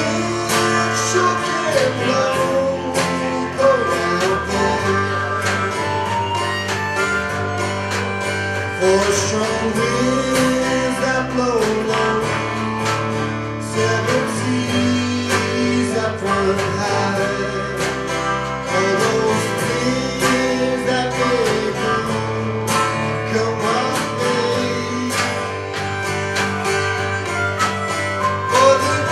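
Live acoustic folk music: guitars playing, with a held melody line rising and falling in long phrases over them.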